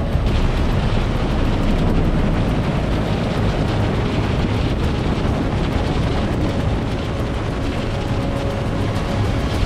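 Firefighting helicopter's rotor and turbine running loud and steady, mixed with wind rush, close to the airframe.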